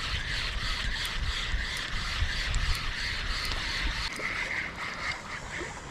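Shimano Sienna 3000 spinning reel being cranked to retrieve line after a cast: a steady whirr with an even, rhythmic pulse from the turning handle and gears, fading just before the end, with wind rumbling on the microphone.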